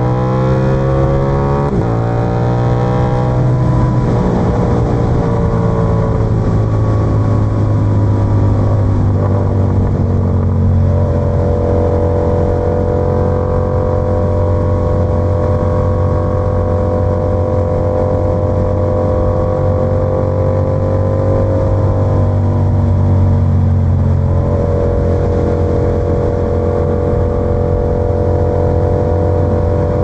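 Yamaha YZF-R7's 689 cc parallel-twin engine under way through an SC-Project exhaust: it climbs in revs with a gear change about two seconds in, eases off, then holds a steady cruise, dipping briefly and picking up again a little before the end.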